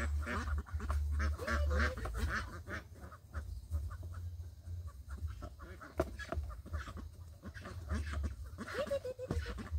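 A flock of domestic ducks quacking and calling, many short overlapping calls, with a low rumble underneath.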